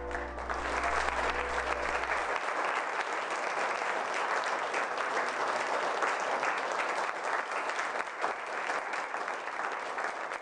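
Crowd applauding steadily, a dense clatter of many hands clapping. A low lingering music tone stops about two seconds in.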